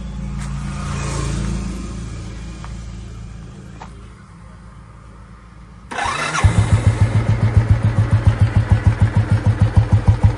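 Royal Enfield cast-iron single-cylinder four-stroke engine, fitted with a retrofit electric starter, comes suddenly to life a little past halfway. It then idles with an even thump of about seven beats a second. Before that, a low rumble swells and fades.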